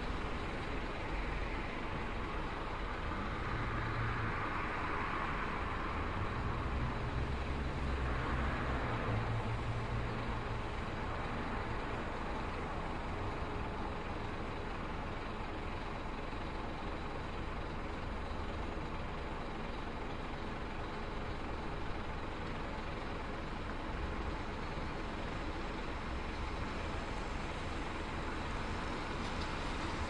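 Bus terminal ambience: a steady wash of bus and traffic engine noise. A low engine rumble swells about three seconds in and fades again after about eleven seconds.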